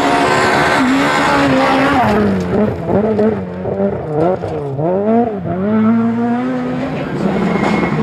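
Rally car engine at high revs, first held steady, then rising and falling sharply several times as the throttle is lifted and reapplied through gear changes, with tyre noise on the loose surface.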